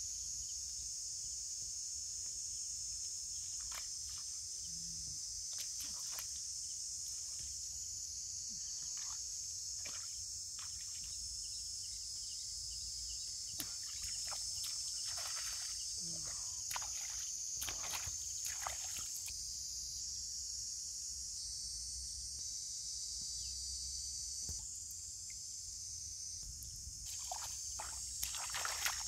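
Steady high-pitched insect chirring, with scattered soft swishes and splashes of bare feet wading through wet rice seedlings and shallow water.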